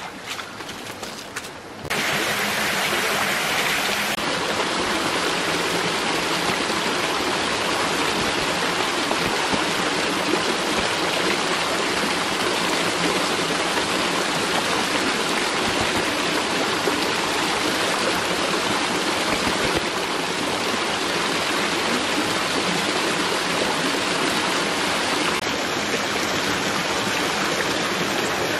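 Shallow rocky stream running: a steady rush of water over stones, which steps up louder about two seconds in and then holds even.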